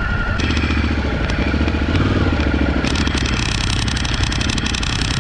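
Suzuki V-Strom's V-twin engine running at low speed as the motorcycle pulls slowly through soft sand, with clattering and scraping from the bike. A rough, crackling hiss joins about three seconds in.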